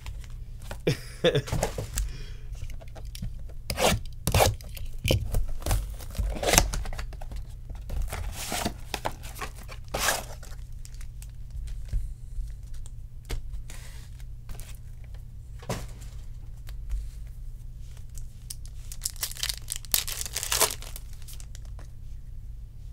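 Trading card pack wrappers being torn open and crinkled by hand in irregular bursts, with the densest tearing about nine seconds in and again near the end, over a steady low hum.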